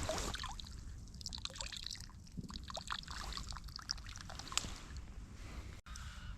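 Irregular small splashes and trickling water as a hooked chub is drawn in and landed.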